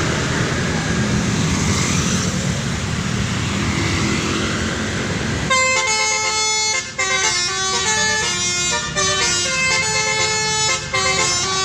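Vehicle engine and road noise, then about halfway in a telolet basuri musical horn starts playing a tune: a string of held horn notes stepping up and down in pitch, in phrases with short breaks between them.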